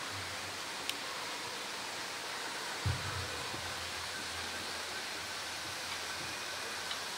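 Steady, even rush of running water, with a brief low thump about three seconds in.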